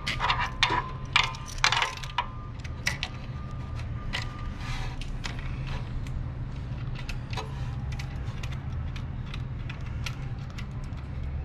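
Metal clicks and clinks of a KF25 clamp and a metal bellows hose fitting being handled and fitted onto a vacuum pump inlet: several sharp clicks in the first two seconds, then lighter, scattered ticking. A steady low hum runs underneath.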